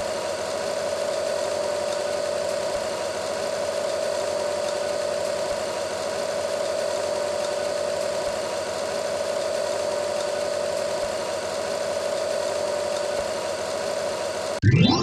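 A steady machine-like drone: even hiss with a constant mid-pitched hum, and a faint low thump about every three seconds. It cuts off sharply near the end.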